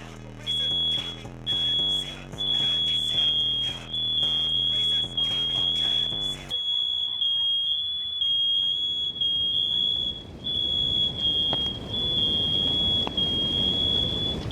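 Household smoke alarm shrieking: one shrill high beep sounding over and over in pulses of about a second with brief breaks, set off by food burning on the stove. Music plays under it and cuts off abruptly about halfway through, leaving a rising hiss beneath the alarm.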